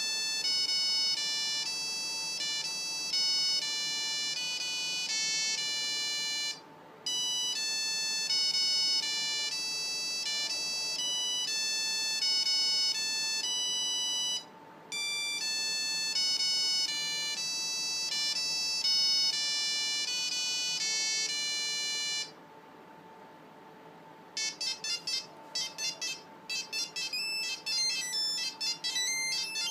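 Nokia 5510 mobile phone playing its original ringtones through its speaker: a bright beeping melody, one note at a time, repeated three times with short gaps. After a brief pause a different, faster ringtone starts near the end.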